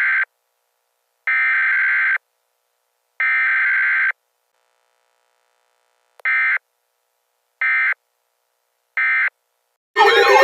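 Emergency Alert System SAME digital header bursts: three harsh buzzing data bursts of about a second each, a second apart, followed by three much shorter bursts, the end-of-message code.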